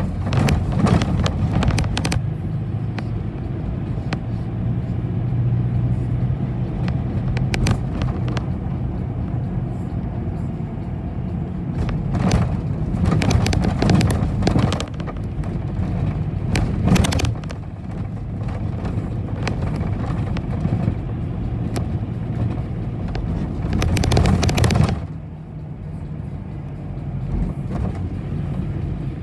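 Inside a moving city bus: the engine runs with a steady low hum, while the body rattles and knocks over bumps, louder in stretches. The sound drops noticeably about four seconds before the end.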